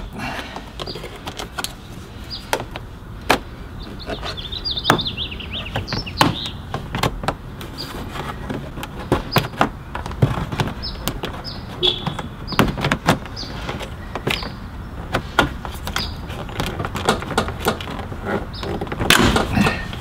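Plastic door-sill scuff plate being pulled up, its snap clips popping loose one after another in irregular sharp clicks and snaps, with handling rattles of the plastic trim.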